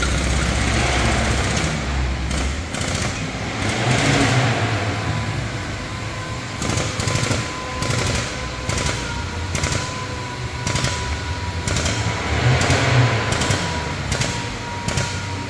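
Frame-bench pulling tower drawing its chain tight on a bent front chassis rail, giving a run of sharp mechanical clicks about two a second over a faint steady whine, while the rail is straightened.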